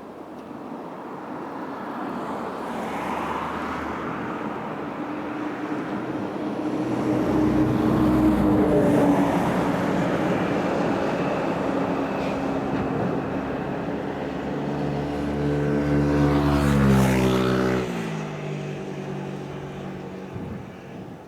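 A locomotive-hauled train passing close by: rolling wheel and rail noise builds up, and the locomotive's engine tone drops sharply in pitch as it goes past, about 17 seconds in, then fades.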